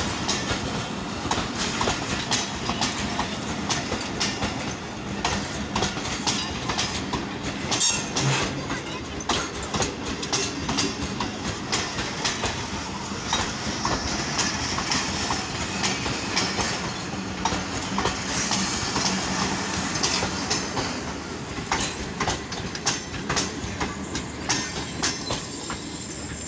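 Fareed Express passenger coaches passing close by, their steel wheels clattering over rail joints in a continuous run of irregular clicks over a steady rumble.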